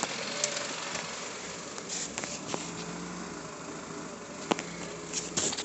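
Mitsubishi 3.5-litre 24-valve V6 running steadily at a raised idle of about 1,800 rpm, with a few sharp clicks scattered through it.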